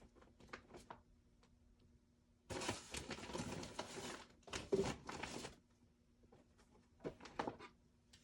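Rustling and light knocks of craft supplies being rummaged through while searching for a hole punch. There are two stretches of dense rustling, about two and a half and four and a half seconds in, with a few small clicks and taps before and after.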